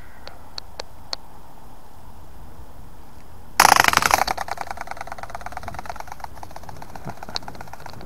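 A few light clicks, then a sudden fast clattering rattle from a rubber-band-powered plastic flapping-wing ornithopter (a toy flying dinosaur) as it is let go. It is loudest at the start and fades over the next few seconds as the wound rubber band runs down, with one more click near the end.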